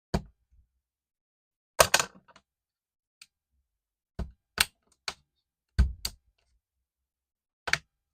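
Separate sharp clicks and knocks, about nine in all, with dead silence between: laptop parts and tools being handled while taking the laptop apart.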